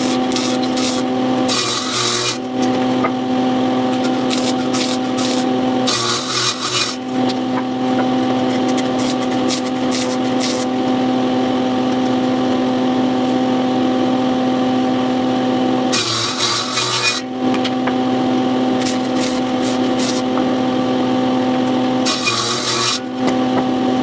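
A power tool working wood: its motor runs with a steady hum, and four times it bites harder into the wood with about a second of harsh, rasping noise.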